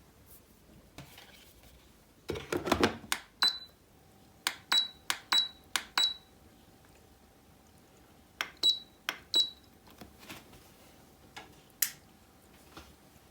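Dishes and utensils clinking together in a series of sharp knocks, several with a short bright ring. They come in two clusters with a pause between.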